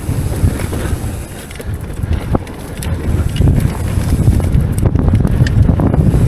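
Heavy wind buffeting the microphone of a mountain biker's camera while riding, easing briefly about a second and a half in, with a few sharp clicks.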